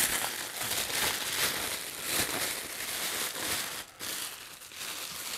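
Plastic packaging crinkling and rustling as it is handled and unwrapped, uneven and crackly.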